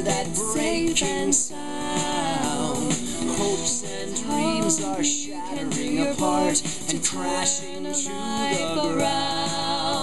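A song with a sung vocal and accompaniment, played back through an Altec Lansing iM237 compact portable speaker.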